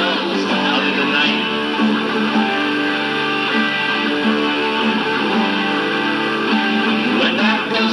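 Guitar music: an instrumental passage of a song, with steady strummed and plucked guitar and no singing.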